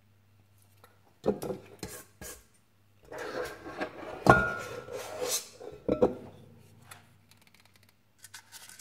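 Stainless steel scoop scraping muffin batter from a stainless steel mixing bowl, with light knocks of metal on metal. About four seconds in, a sharper clink sets the bowl ringing briefly, and fainter scraping follows near the end.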